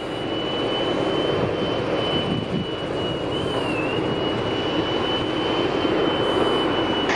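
Jet airliner engines running: a steady rush of engine noise with a thin high whine, slowly growing louder.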